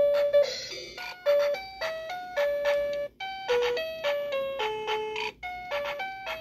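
Little Tikes Animal Band toy keyboard playing an electronic tune: a simple melody of short beeping notes, one after another.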